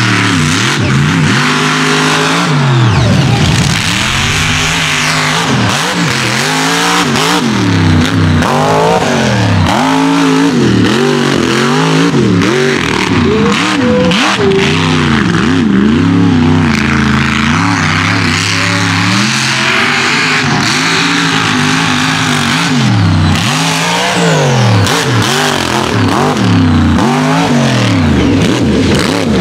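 Mega mud truck engines revving hard, the revs climbing and dropping over and over as the throttle is worked.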